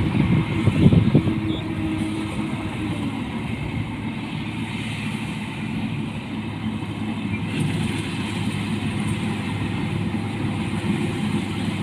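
Rice combine harvester running steadily, a continuous engine and machinery drone that is a little louder and rougher in the first second or so.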